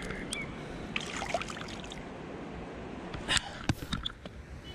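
Water dripping and lapping at the river's edge as a pike is released, then a few sharp knocks and rustling from the camera being handled, loudest about three and a half seconds in.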